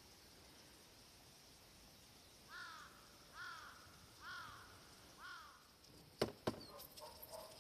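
A crow cawing four times, about a second apart, followed by two sharp clicks.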